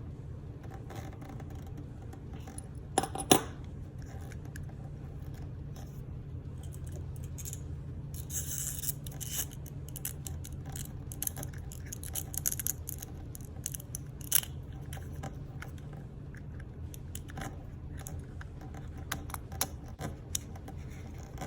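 Hands working on a subwoofer cable and its Speakon connector parts: scattered small clicks, snips and scrapes, with a sharp double click about three seconds in and another loud click about fourteen seconds in, over a steady low hum.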